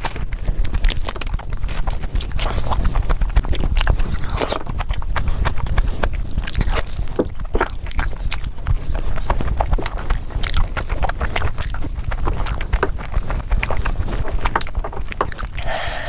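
Close-miked eating with the hands: wet chewing and lip-smacking clicks from mouthfuls of curry-soaked rice and mutton, with squelching as fingers work the rice on the table.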